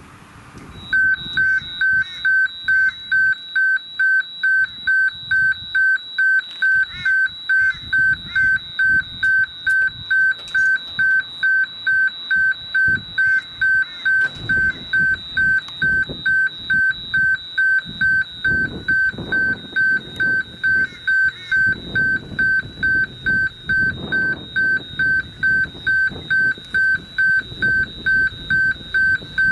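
Railway level crossing warning bell beeping about twice a second, starting about a second in, as the train approaches. Under it, the approaching diesel locomotive's engine grows louder in the second half.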